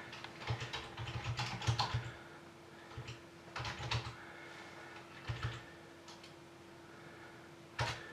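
Typing on a computer keyboard in bursts of keystrokes: a run of about a second and a half, shorter groups in the middle and one quick clatter near the end. A faint steady hum runs underneath.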